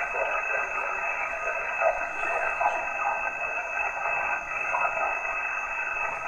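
Yaesu FT-891 HF transceiver receiving single-sideband on the 20-metre band: a steady narrow hiss of band noise with faint, broken fragments of distant voices under it.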